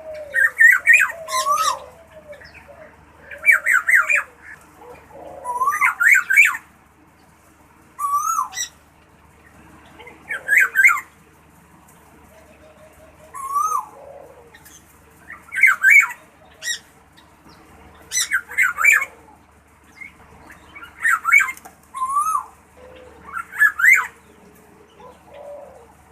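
Golden oriole calling in short, rapid, warbling bursts that repeat about every two to three seconds, with softer, lower sliding notes between them.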